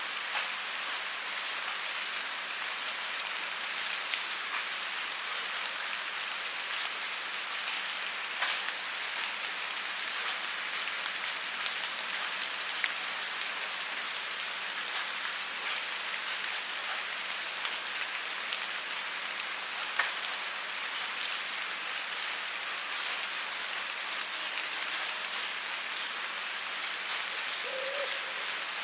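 Steady rain falling, an even hiss with scattered individual drop impacts, one sharper drop about twenty seconds in.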